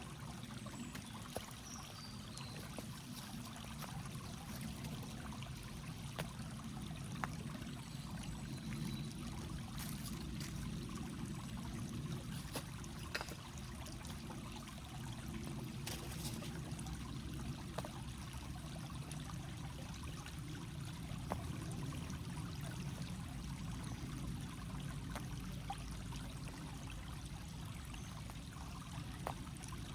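A stream or river flowing steadily, with a few faint clicks scattered through.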